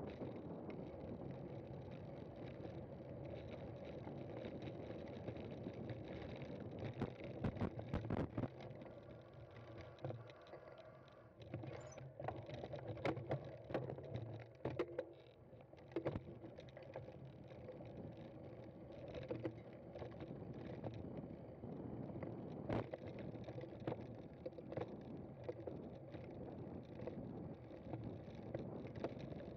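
Cyclocross bike being ridden over rough ground: a steady rush of tyre and riding noise, with clusters of sharp knocks and rattles about seven seconds in and again from about twelve to sixteen seconds in.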